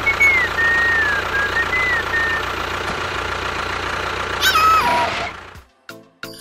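Tractor engine sound running steadily, with a high wavering tone over it for the first two seconds and a falling squeak just before it cuts off about five seconds in. Light plinking music follows near the end.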